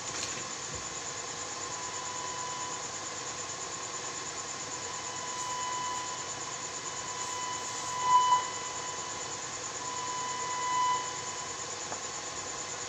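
Steady electronic hiss with a faint high whine, and a pure, steady mid-pitched test tone that comes and goes several times. It swells briefly and is loudest about eight seconds in, and again near eleven seconds, as the amplifier board is being probed.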